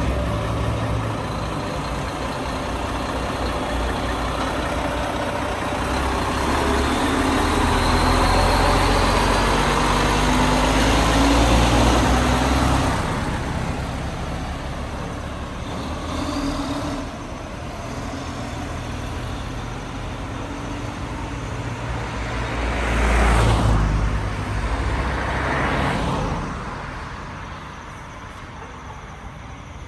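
Motor-vehicle engine running close by with road noise, loudest about a third of the way through, then two vehicles passing in quick succession about three-quarters of the way through.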